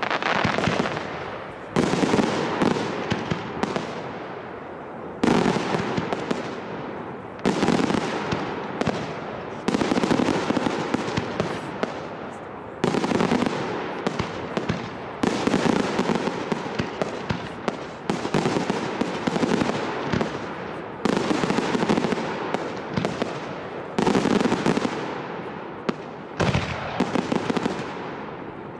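Large professional fireworks display: aerial shells going off with a sharp report about every two to three seconds, each followed by a fading crackle.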